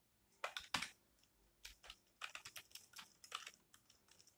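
Typing on a computer keyboard: quick runs of keystrokes with short pauses between them, the loudest pair just under a second in.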